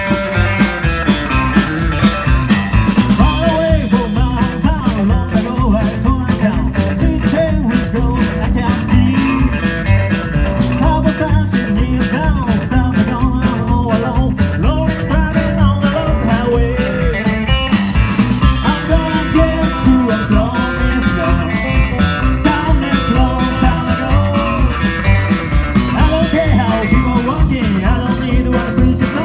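Live rockabilly band playing loud and without a break: electric guitar, upright bass and drums over a steady, driving beat.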